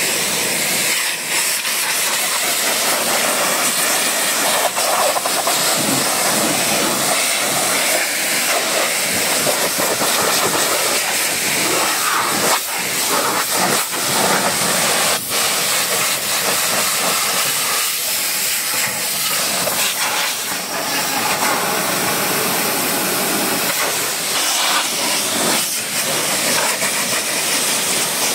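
High-pressure washer jet spraying onto a car's bodywork: a steady, loud hiss of water that dips briefly a few times as the lance moves.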